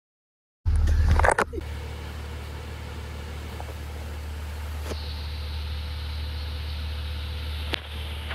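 School bus engine running, heard inside the cabin as a steady low drone. There is a brief louder burst of noise about a second in and a couple of faint clicks later on.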